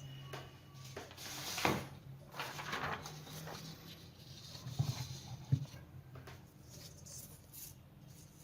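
Paper and pen being handled on a desk: irregular rustling in the first few seconds, then two light knocks about five seconds in.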